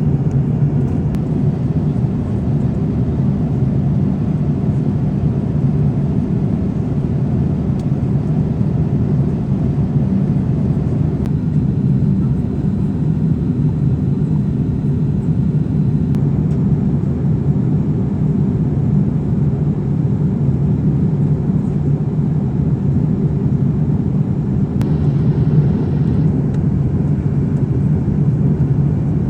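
Steady low cabin rumble inside a Boeing 787-8 airliner in flight: engine and airflow noise heard from an economy seat.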